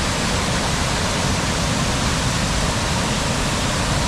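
Waterfall with water rushing steadily.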